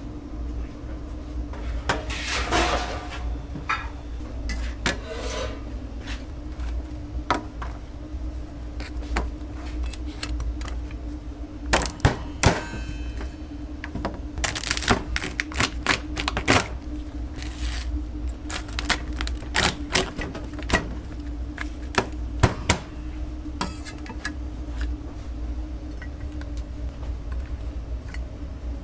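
Cooked lobsters being handled and split on stainless steel: irregular clicks, knocks and clatter of hard shell and steel tools against the steel counter and tray, a few louder knocks among them, over a steady low hum.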